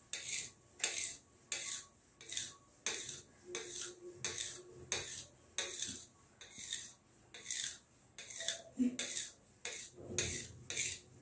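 A knife slicing through a paper-thin sheet of parotta dough and scraping the countertop beneath, in short repeated strokes about two a second.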